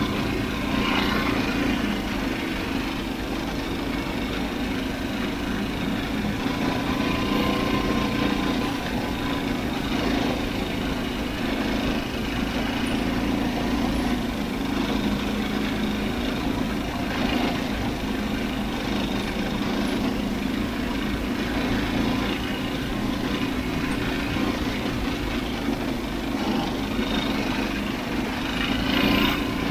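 Small single-cylinder Tecumseh 6.5 hp engine of a Murray Kilowatt with its governor removed, running steadily under way.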